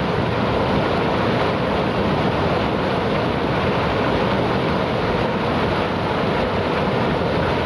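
A river flowing: a steady, loud rush of water with no breaks or changes.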